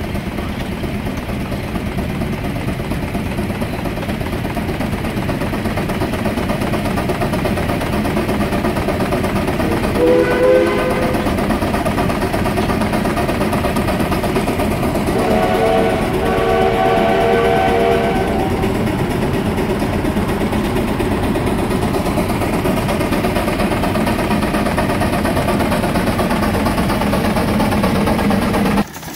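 Case steam traction engine running steadily on the belt, with two blasts of its steam whistle sounding several tones at once: a short one about ten seconds in and a longer one about fifteen seconds in.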